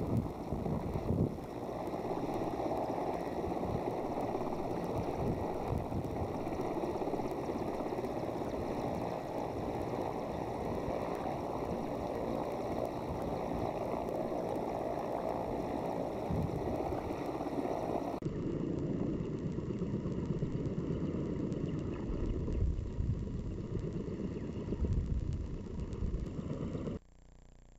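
Mil Mi-8-type transport helicopter running on the ground with its rotors turning: a steady rushing noise with the rotor wash buffeting the microphone. It turns duller about two-thirds of the way through and cuts off sharply near the end.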